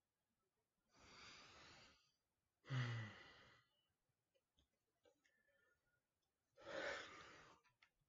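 A person breathing out close to the microphone three times: about a second in, about three seconds in, and near the end. The middle breath is a voiced sigh and the loudest.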